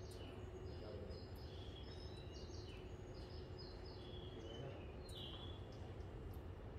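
Repeated short, high bird-like chirps, several sliding downward in pitch, over a steady low hum of the station.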